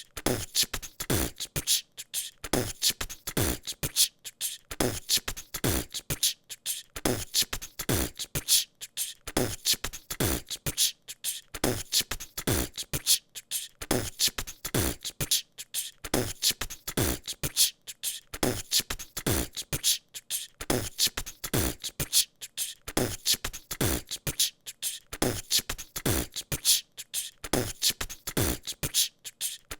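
A person beatboxing a steady, looping beat: deep kick sounds that drop in pitch, about one a second, with sharp hi-hat and snare clicks in between.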